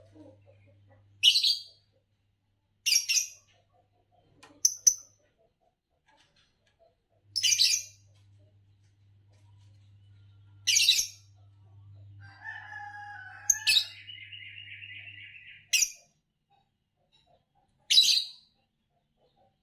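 Green Fischer's lovebirds chirping: short, sharp, high chirps repeated about every two seconds, with a quieter rapid chattering run a little past the middle.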